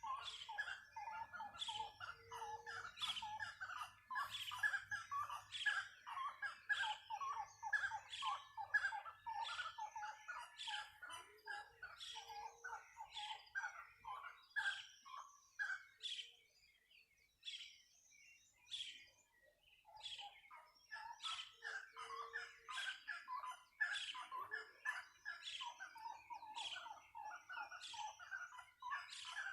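A dense chorus of many birds chirping and calling in the Brazilian forest, rapid short calls overlapping. The calling thins to a brief lull a little past the middle, then picks up again.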